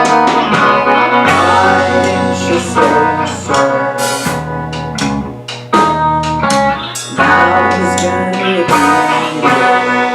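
Live band playing a song: guitar chords over bass and a drum kit with sharp cymbal and drum hits. Near the end the drumming stops and the last chord rings out.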